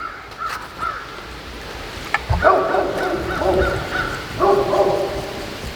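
An animal calling twice: one call about a second long starting a little over two seconds in, and a shorter one about four and a half seconds in.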